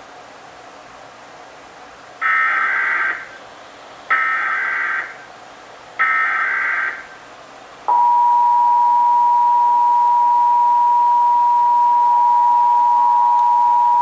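Emergency Alert System SAME header: three roughly one-second bursts of warbling data tones, about a second apart. About eight seconds in comes the EAS two-tone attention signal (853 and 960 Hz together), held steady.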